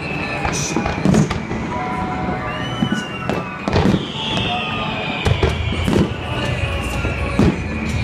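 Fireworks display: repeated booms and bangs, several close together at times, with long whistling tones that slide down in pitch.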